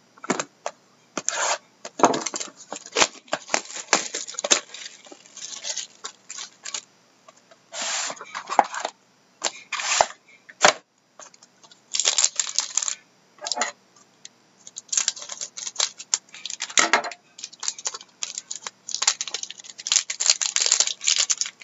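Plastic shrink wrap being torn and crinkled off a sealed cardboard trading-card box, then the box handled and its plastic-wrapped card pack lifted out. The sound is irregular crackling, tearing and light clicks in short bursts with brief pauses.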